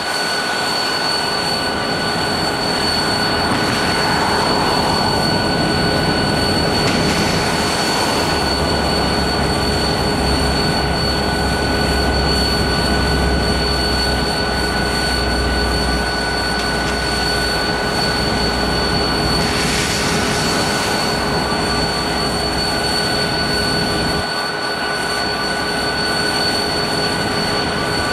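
Diesel locomotive running: a steady mechanical noise with a constant high whine over it. A deeper rumble comes in about eight seconds in and drops away about a second past the twenty-four-second mark.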